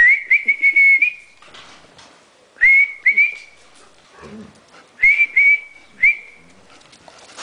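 A person whistling to call dogs: three bursts of high whistles. Each burst opens with short notes that slide quickly upward and then holds a steady note, the first lasting about a second.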